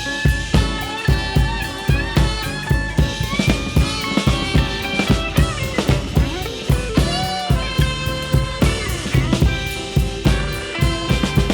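Live blues band playing an instrumental passage: a drum kit keeps a steady beat while a lead instrument bends its notes up and down.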